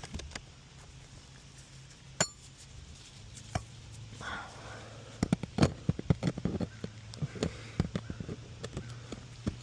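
Steel nail puller and hammer working roofing nails out from under asphalt shingles: sharp metallic clicks and taps, single ones about two and three and a half seconds in, then a quick run of them between about five and seven seconds.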